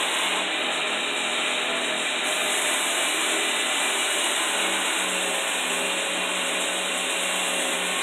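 Belt grinder running steadily with a hardened steel knife blade held flat against the sanding belt, grinding down a thick high spot on the blade to even it out: a continuous grinding hiss over a steady motor hum.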